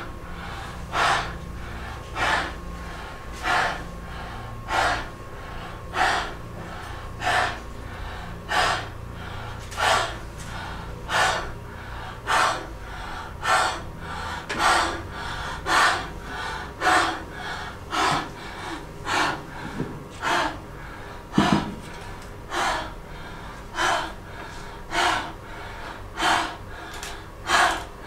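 A woman gasping sharply and rhythmically into a microphone, about once a second, each gasp a short amplified rush of breath.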